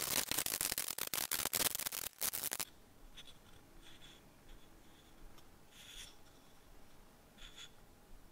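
Flat hand file rasping across the edge of a pine wood bowl in quick back-and-forth strokes, several a second, stopping about two and a half seconds in. After that only a few faint short sounds.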